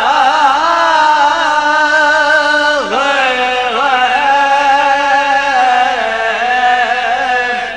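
Male voice chanting a marsiya in soz khwani style, in long held notes that glide up and down in pitch, with a brief breath-like dip about three seconds in; the phrase fades out near the end.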